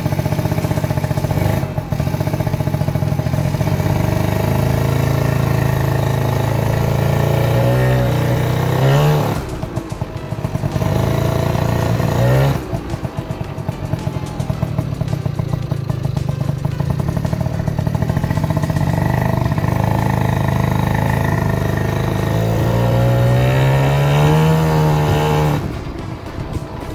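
Malika 50 cc two-stroke automatic scooter engine running through an aftermarket racing exhaust while being ridden. The note climbs with the throttle and falls away twice, about nine seconds in and near the end. It is a mild, not very aggressive sound for its small 50 cc.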